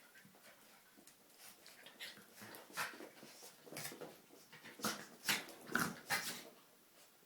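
Jack Russell terriers playing, making a run of short dog noises that grow louder, with the loudest bunched together about five to six seconds in.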